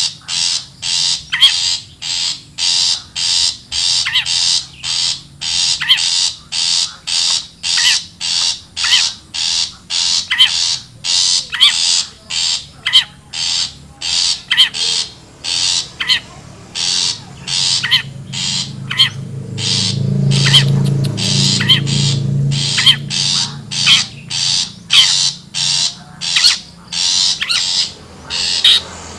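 Bird lure call for long-tailed shrikes (cendet): harsh, rasping calls repeated evenly about twice a second. A low hum swells underneath around twenty seconds in.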